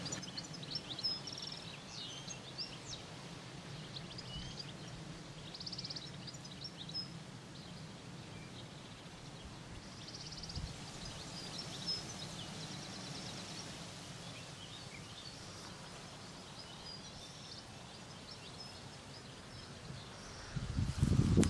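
Outdoor ambience of several small birds chirping and trilling, with short high calls scattered throughout and a couple of rapid trills, over a steady low hum. Near the end, loud low rumbling comes onto the microphone.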